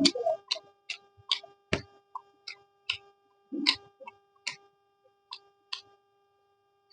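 A person chewing food close to the microphone, sharp wet smacks of the mouth about two a second, stopping near the end, over a faint steady hum.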